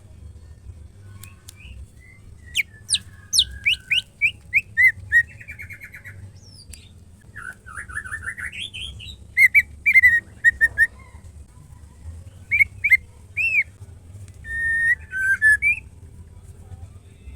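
White-rumped shama singing: phrases of quick downward-sweeping whistled notes, a rising trill and clear repeated whistles, separated by short pauses, over a steady low hum.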